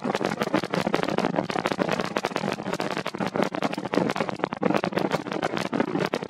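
Exhaust crackle from Starship's Super Heavy booster and its 33 Raptor engines in ascent: a dense, irregular crackling and popping that never lets up.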